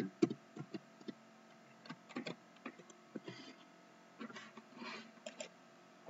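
Scattered clicks of a computer keyboard and mouse, irregular and light, some in quick little runs.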